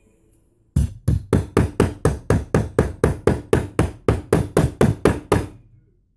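Hammer striking a metal hand stamp into an aluminium blank: about twenty quick, even blows at roughly four a second, stopping near the end.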